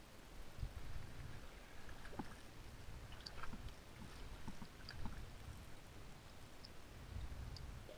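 Muffled underwater sound from a diver: low rumbles recur about every two seconds, typical of exhaled breath bubbles from a scuba regulator. Faint small clicks and taps come between them.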